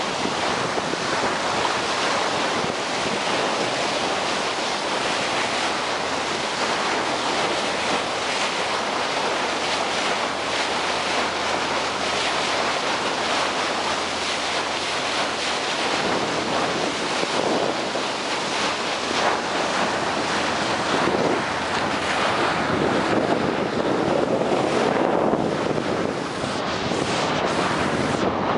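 Sea water rushing and splashing along the hull of a moving boat, with wind buffeting the microphone.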